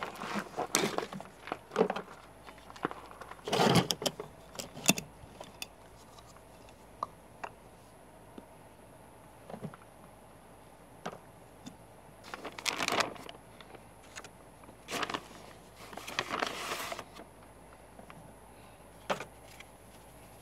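Kitchen ingredients being handled on a table: a resealable baking soda bag rustling, a measuring cup scooping powder, and plastic tubs and lids clicking and tapping as baking soda and flour go into a plastic tub. Short scattered rustles and knocks come and go, with quiet gaps between them.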